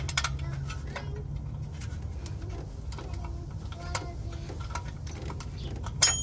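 Light metallic clicks and scrapes of a hand tool working the parking-brake shoe springs on a rear brake backing plate, ending about six seconds in with a sharp metal click that rings briefly. A steady low rumble runs underneath.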